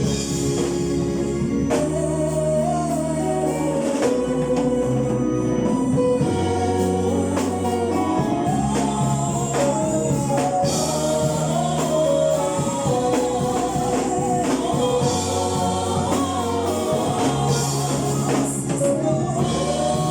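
Gospel music: a choir singing over bass, drums and tambourine.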